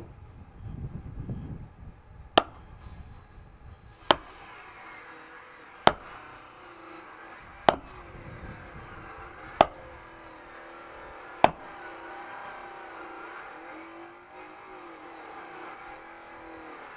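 Six sharp strikes, evenly spaced about two seconds apart, from firewood being split by hand with a heavy long-handled striking tool.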